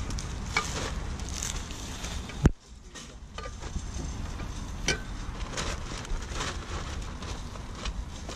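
Handling noise of goods being loaded into a car boot: rustling and crackling of packaging with scattered light knocks. One sharp knock about two and a half seconds in is the loudest sound.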